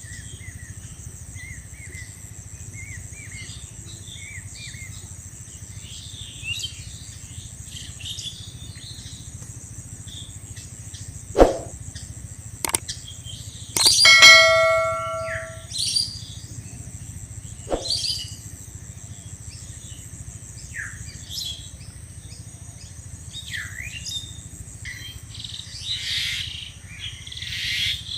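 Birds chirping and calling over a steady high insect-like whine. About halfway through come a few sharp clicks and one bell-like ring that dies away after a second or so.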